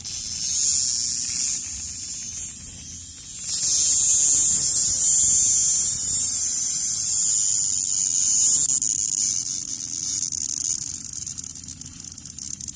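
A cicada held in the hand giving its loud distress buzz, a harsh high-pitched drone. It gets louder about three and a half seconds in and eases off toward the end.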